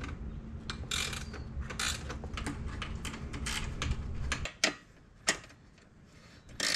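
Ratchet wrench clicking in short bursts as it is swung back and forth, tightening the bolts and nuts that hold the mounting brackets to a solar panel's frame.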